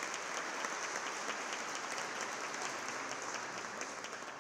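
Audience applauding, a dense steady clapping that begins to die away near the end.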